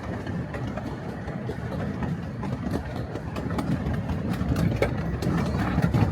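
Miniature railway train running: a steady low rumble that grows gradually louder, with a few scattered clicks.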